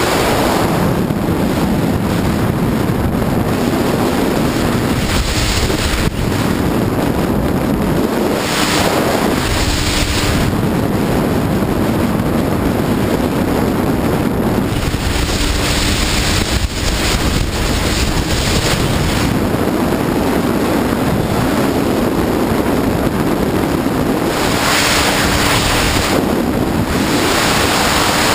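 Sea-Doo personal watercraft running underway: a steady engine drone buried under heavy wind buffeting on the microphone and the rush of water along the hull, with stretches of louder spray hiss that come and go.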